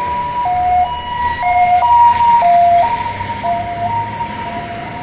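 Electronic background music: sustained, clean synth tones stepping between a few pitches in a slow melody, over a low traffic rumble.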